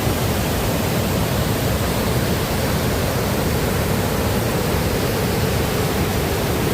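Steady, loud rush of a waterfall heard close up, an even wash of water noise with no change.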